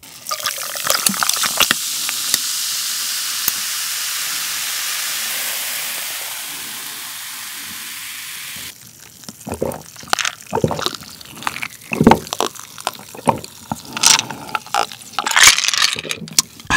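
Cola poured from a plastic bottle over ice in a glass, pouring and fizzing as a steady hiss that cuts off suddenly after about eight and a half seconds. Then comes a run of separate clicks and clinks as the iced glass is handled and drunk from.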